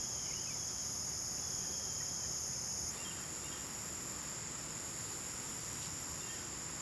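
Steady chorus of crickets, a continuous high trill whose tone shifts slightly about three seconds in.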